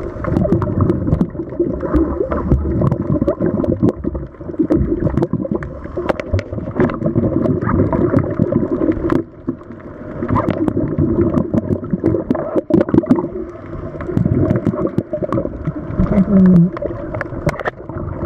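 Scuba divers' exhaled air bubbling from their regulators, heard underwater through the camera housing: muffled gurgling and rumbling in surges, with scattered clicks and knocks. A short low hum near the end.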